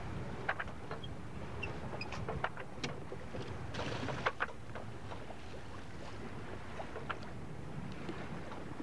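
Steady low rush of water and wind around a Catalina 27 sailboat under way, with scattered sharp clicks and knocks, most of them in the first half.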